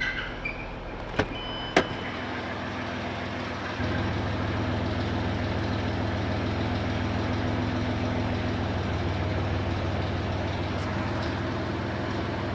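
Ford Escape engine running steadily, with two sharp clicks early on and a step up in loudness about four seconds in that then holds steady; the engine has a knock that the owner puts down to a spun bearing.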